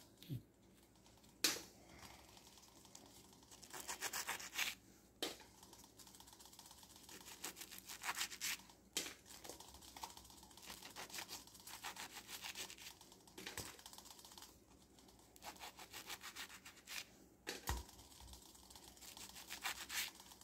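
Serrated knife sawing through the crisp crust of baked choux-dough puffs, in short bursts of quick scratchy strokes, with a few sharp clicks in between.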